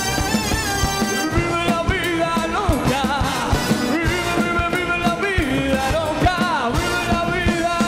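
Live rock band music: voices singing with vibrato over electric guitars, keyboards and a steady drum beat.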